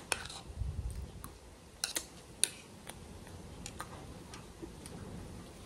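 Irregular sharp clicks and taps of tableware and handling as a person eats at a table, tearing a piece of fried bread. There is a soft low thump near the start, and the loudest click comes about two and a half seconds in.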